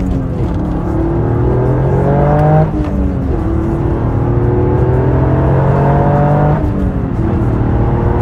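Toyota GR Yaris's 1.6-litre turbocharged three-cylinder engine accelerating through the gears. The revs climb, drop at an upshift between two and three seconds in, climb again, and drop at a second upshift about seven seconds in before rising once more.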